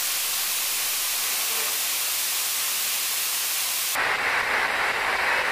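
Steady static hiss from a spirit-box session recording. About four seconds in it switches abruptly to a narrower, brighter filtered hiss of an audio-enhanced replay.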